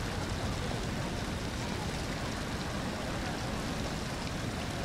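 Steady heavy rain: an even, unbroken hiss.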